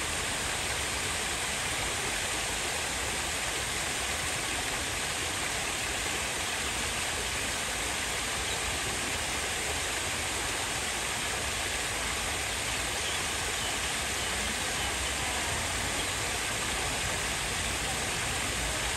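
Steady, even rushing outdoor noise with no distinct events, the kind of hiss given by flowing water or wind.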